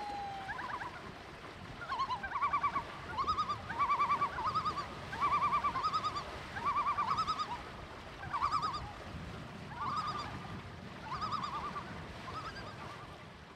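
A bird calling in a series of short phrases, each a quick run of repeated stuttering notes, about a dozen phrases coming roughly once a second at first and more spaced out later, over a steady low background hiss.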